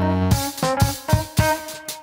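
Background music: held instrumental notes, then drums come in with a steady beat about a third of a second in.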